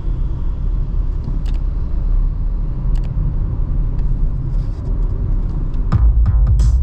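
Steady low road and engine rumble inside the cabin of a moving Volkswagen Virtus. Near the end, a bass-heavy music track starts through the car's speakers.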